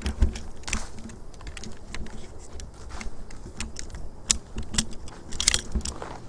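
Footsteps crunching through dry leaf litter and twigs on a forest floor: irregular crackles and snaps with dull low thuds underneath.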